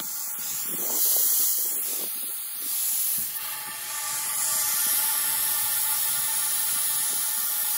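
Air hissing steadily into a CRT picture tube through the anode hole where a screwdriver has broken the vacuum: the sign that the tube is letting up to air and being made safe.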